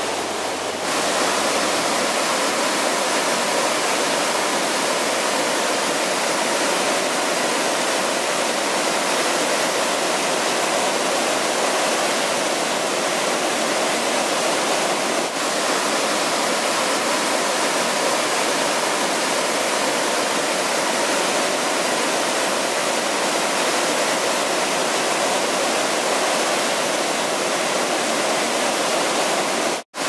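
River rapids rushing over rock ledges: a steady, loud rush of whitewater.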